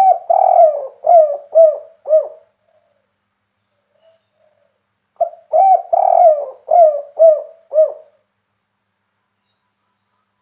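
Spotted dove (derkuku) cooing with a big voice in the 'kuk 3' style: two phrases, each a run of about five or six low coos, the second starting about five seconds in.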